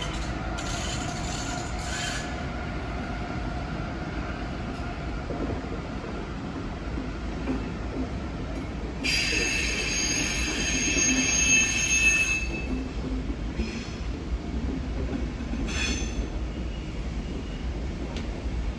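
A train running on the rails with a steady low rumble; about halfway through, its wheels squeal in a high, several-toned screech for about three seconds.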